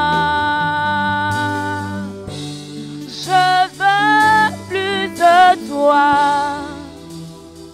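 Slow worship music: sustained keyboard chords under a long held note that fades about two seconds in, then a few short wordless sung phrases with vibrato and another held note.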